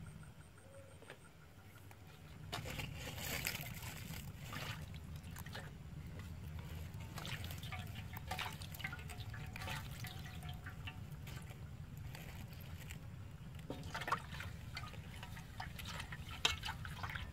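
Water sloshing and trickling in a metal wok as it is rinsed by hand, with irregular small splashes and drips.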